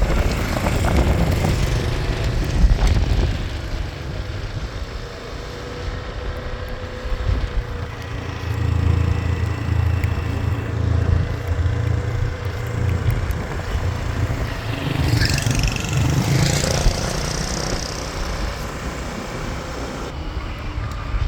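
Motor vehicle driving, a steady engine and road rumble with a faint steady hum. Brief higher-pitched noise comes in about fifteen seconds in.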